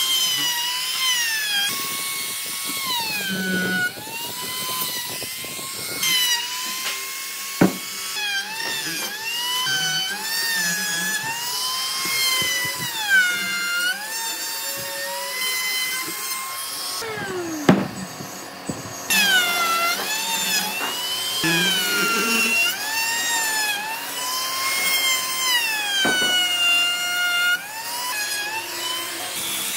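Handheld electric trim router cutting into a solid wood block, its high whine dipping in pitch each time the bit bites under load and recovering as it eases off. Just past halfway it falls away for a couple of seconds, then winds back up to full speed.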